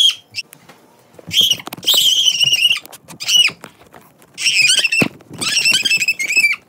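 A child screaming in a shrill, high-pitched voice: about five wavering screams in a row, the longest more than a second. A single thump comes about five seconds in.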